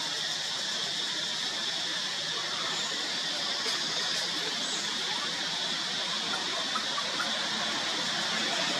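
A steady high-pitched hiss of background noise, with a couple of faint ticks about four seconds in; no monkey calls are heard.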